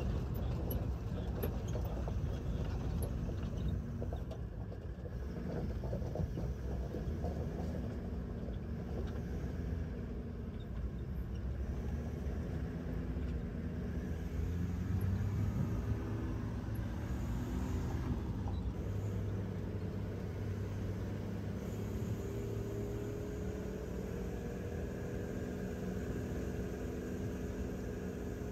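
Car engine and road noise heard from inside the cabin: a steady low rumble, with the engine's pitch slowly rising and falling as it works up and down the road.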